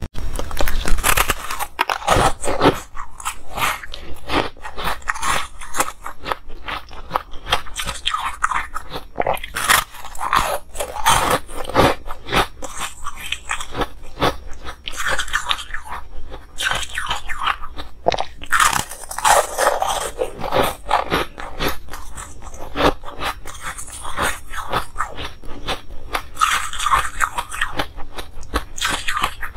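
Biting and chewing waffle-shaped discs of ice, a dense run of crisp crunches one after another.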